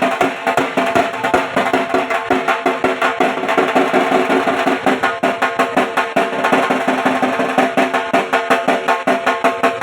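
Dhak, the large Bengali barrel drum, played with wooden sticks in a fast, even rhythm of rapid strokes, its heads ringing under the beats.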